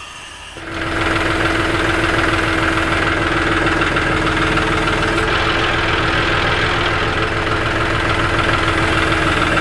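John Deere tractor's engine running steadily under a steady whine, lifting the front of the Bronco with its forks. It comes in about a second in.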